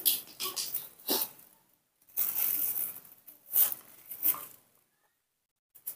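Short bursts of rustling and crinkling from a banana being peeled and a plastic bag of banana pieces being handled, dying away about five seconds in.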